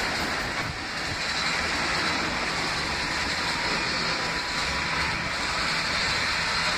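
R68A subway train rolling away into a tunnel: a steady, even rolling noise of steel wheels on rail, with no clear motor howl.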